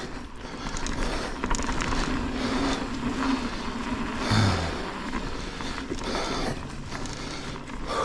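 Rocky Mountain Altitude mountain bike rolling along a dirt forest trail: steady tyre noise over soil and fallen leaves, with small clicks and knocks from the bike.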